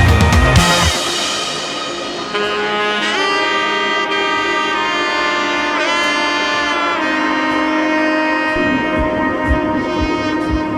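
Background music: a sustained saxophone or brass melody over a soft backing, with a drum beat dropping out about a second in and a low beat coming back near the end.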